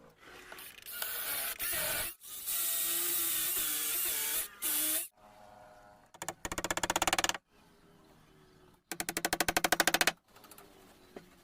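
Woodworking tools working wood in short bursts: a long noisy cut with a wavering whine, then two shorter bursts of rapid, even strokes.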